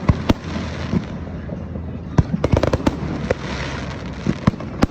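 Diwali fireworks and firecrackers going off: irregular sharp bangs, some in quick clusters, over a steady crackling hiss.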